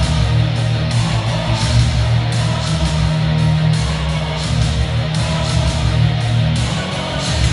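Rock music with guitar and a steady drum beat, played loud through a pair of Tomate MTS-2026 bookshelf speakers in a room.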